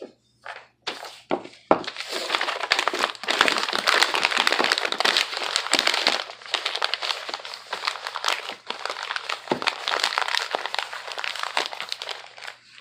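Paper crumpling and crinkling as small items are wrapped for packing: a few separate rustles, then a dense run of crackling from about two seconds in until just before the end.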